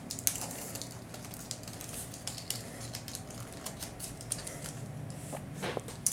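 Hands handling and posing a plastic action figure: scattered light clicks and taps of plastic parts and joints under the fingers.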